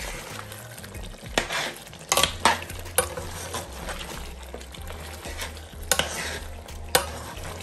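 A metal spoon stirs and scrapes a thick meat curry in an aluminium pot, knocking sharply against the pot several times. Under it the spiced meat sizzles steadily as it fries in its masala.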